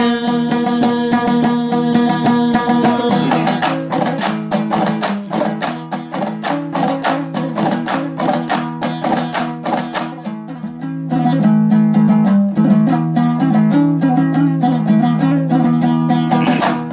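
Instrumental break in a Hazaragi folk song: a plucked string instrument strummed rapidly over a held low drone note, growing a little louder about eleven seconds in.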